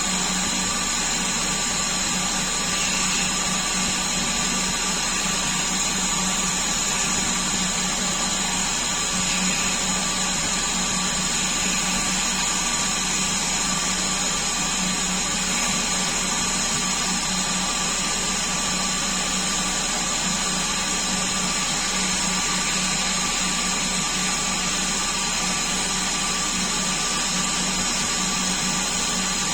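DIY CNC-converted Coronet lathe running steadily: a constant motor hum with several fixed high whines, unchanging in pitch and level.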